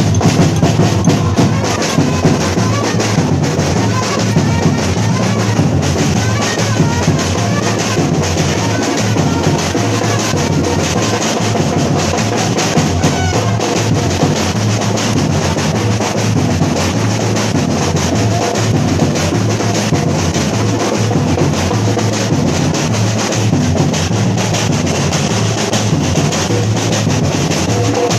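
Brazilian samba batucada: a bateria of drums and percussion playing a steady, dense rhythm without a break.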